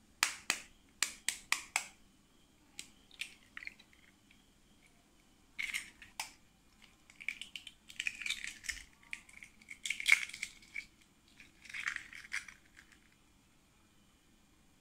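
Eggs being cracked on the rim of a ceramic bowl: a quick run of sharp taps at the start, then scattered cracks and crackling of shell as the eggs are broken open and dropped in.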